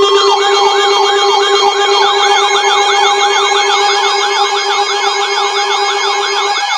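Sirens wailing in rapid rising-and-falling cycles, about three a second, several layered together over steady alert tones and a low buzz. The buzz stops near the end.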